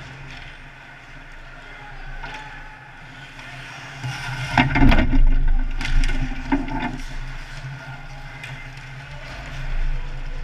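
Ice hockey play close to the net: skates scraping on the ice and sticks and puck clacking. The noise peaks about 4 to 7 seconds in with a run of sharp knocks, and swells again briefly near the end.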